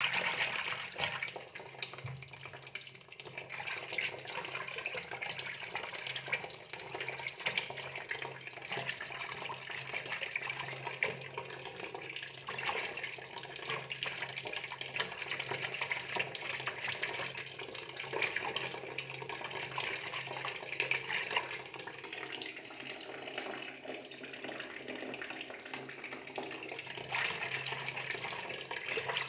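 Water running and splashing, steady throughout, with a steady low hum underneath.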